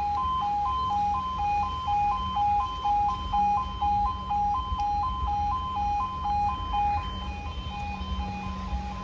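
Level-crossing audible warning from Apollo E2S sounders: a two-tone alarm alternating between two high notes about twice a second, kept sounding because the barriers are staying down for a second train.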